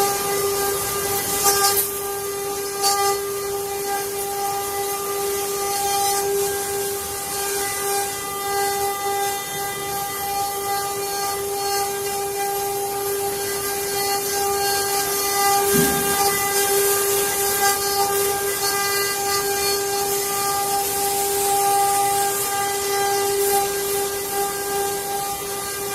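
CNC wood-carving router running, its spindle giving a steady whine at one constant pitch over a high hiss.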